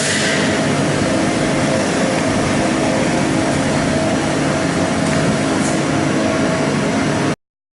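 Haas TL-15 CNC lathe running: a steady machine hum with several held tones over a hiss, cutting off suddenly about seven seconds in.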